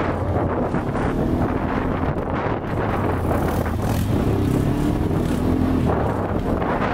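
Quad ATV engine running steadily while riding along a dirt trail, with wind buffeting the microphone.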